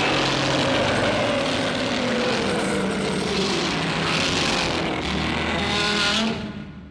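Movie sound effect: a loud, steady rushing, engine-like noise with a faint tone that slowly falls in pitch, fading out near the end.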